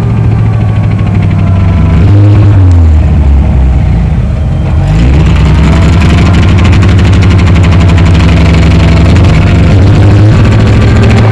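Alvis Saracen FV603's Rolls-Royce B80 straight-eight petrol engine running with a misfire. The revs drop about two seconds in, rise again about five seconds in, then hold steady.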